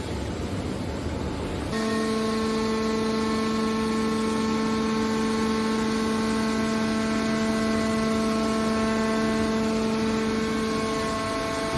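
Scrap metal baler shear's hydraulic power unit running: a low rumble, then about two seconds in a steady pitched hum with overtones comes in and holds.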